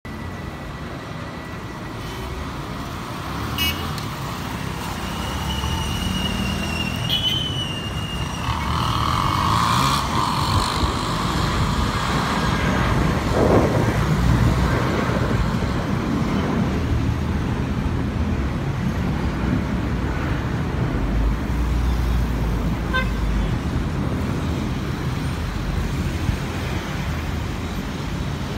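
Airbus A319's IAE V2500 turbofans rumbling overhead as the jet climbs away, swelling to a peak around the middle and then slowly easing, mixed with street traffic noise.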